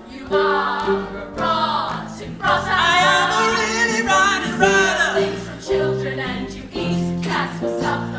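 A group of voices singing a song over a backing track with a stepping bass line.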